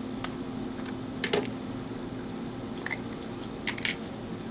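Scattered small plastic clicks and taps, about six of them at uneven intervals, as a screwdriver works the battery-cover screw of a plastic RC car transmitter and the remote is handled, over a steady low hum.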